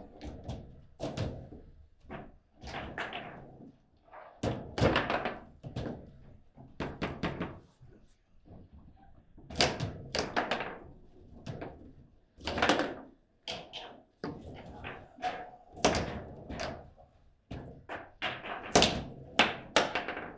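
Table football in play: irregular clusters of sharp knocks and thuds as the ball is struck by the rod-mounted players and rebounds off the table, with several louder hard shots.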